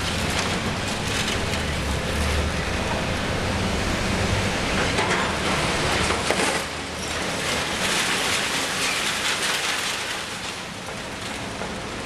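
Liebherr 954 demolition excavator at work: a dense crackling hiss of concrete being broken and rubble falling over the low hum of its diesel engine. The engine hum fades about four seconds in, leaving the crackle.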